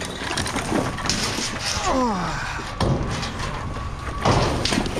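Rusty steel chain clanking and scraping as it is hauled out of a steel dumpster, with trash rustling and a few sharp knocks against metal. A short falling tone comes about two seconds in.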